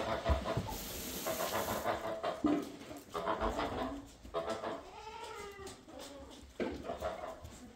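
Barnyard poultry calling: a run of short calls, with a longer wavering call about five seconds in.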